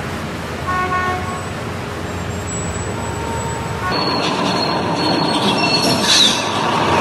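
Street traffic noise with a short vehicle horn toot about a second in. From about four seconds the noise grows busier, with thin high squeals over it.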